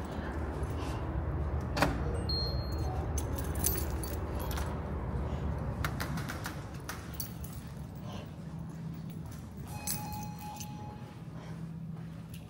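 Light metallic jingling and clicking while walking, over a steady low rumble.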